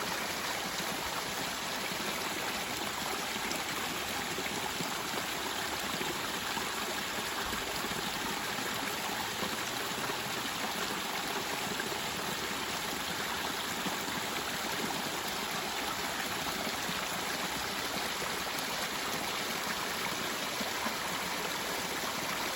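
Mountain stream running over rocks, a steady rushing and babbling of flowing water.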